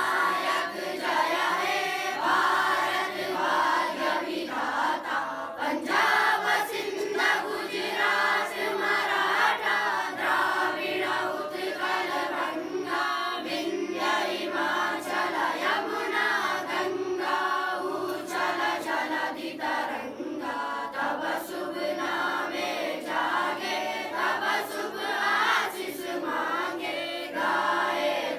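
A group of voices singing together in a chant-like song, held over a steady low tone.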